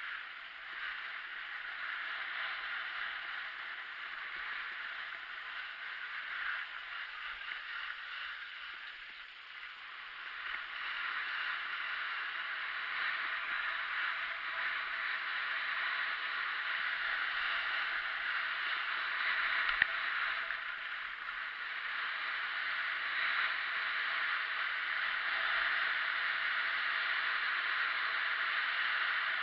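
Skis running fast down a hard-packed piste: a steady hissing scrape of ski edges on snow, mixed with rushing air, growing louder from about ten seconds in. A single short click comes near the twenty-second mark.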